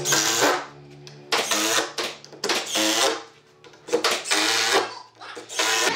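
Cordless impact driver driving screws into pine framing over plywood. It runs in about five short bursts of half a second to a second each, with a motor whine and the rapid rattle of its hammering action.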